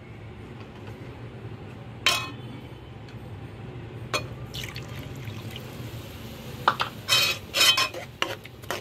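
Milk being poured from a bowl into a hot steel pan of roasted semolina and coconut. In the last two seconds a steel spoon stirs it in a run of loud scrapes and splashes.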